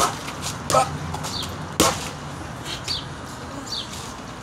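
Boxing gloves striking focus mitts: two sharp smacks about two seconds apart, one at the start and one just under two seconds in, with a lighter hit between.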